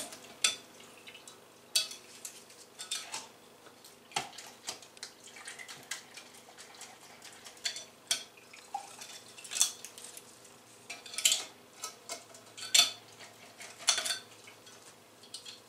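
Tin cans and a hard, resin-stabilised pine cone clinking and knocking together as the cone is rinsed in acetone. The knocks are short and come irregularly, about a dozen of them, with quiet between.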